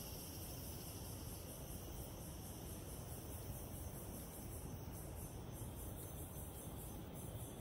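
Forest insects, cricket-like, calling steadily: a high, evenly pulsing chirr repeating several times a second, over a low steady rumble.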